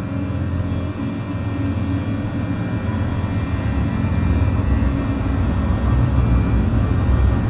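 Dark ambient background music: a steady, low rumbling drone that grows slightly louder about halfway through.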